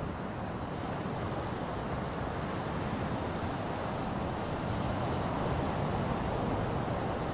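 Ocean waves washing on a shore, a steady rushing surf that swells slightly partway through.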